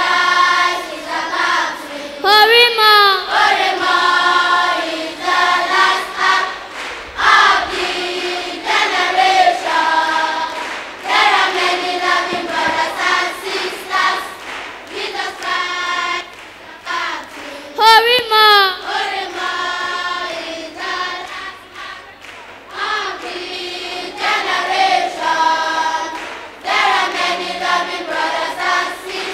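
Children's choir singing a gospel song, with a couple of quick swooping vocal glides.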